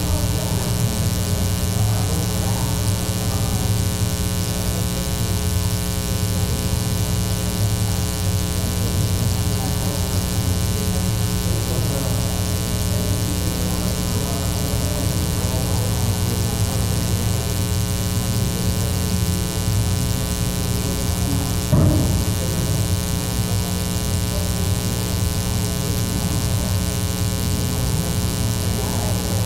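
Loud, steady electrical mains hum with a stack of overtones, with faint, indistinct voices underneath and a single knock about two-thirds of the way through.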